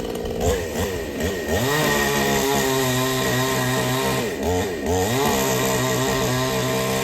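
Two-stroke chainsaw engine running at high revs. Its pitch twice drops and climbs back as the throttle is eased and opened again, then holds steady.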